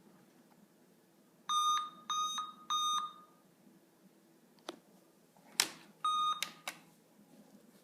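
A PC's motherboard speaker sounding error beeps on a computer that will not start: three short, high beeps in a row, then another single beep a few seconds later. Sharp clicks and one louder knock fall between and after the beeps.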